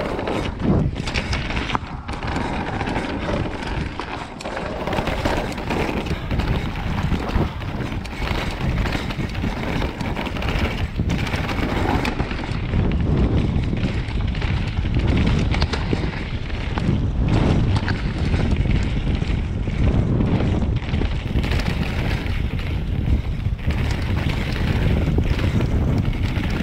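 Wind buffeting an action camera's microphone and the tyres of a Commencal Meta Power 29 electric mountain bike rolling fast over a rough dirt trail, with frequent knocks and rattles from the bike on the descent. The rumble grows heavier from about halfway through.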